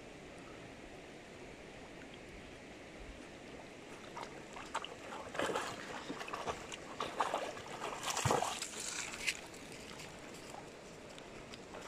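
Shallow river flowing steadily. From about four seconds in, a dog wading through the water makes a run of irregular splashes and sloshes, loudest around eight seconds, and they die away a little before the end.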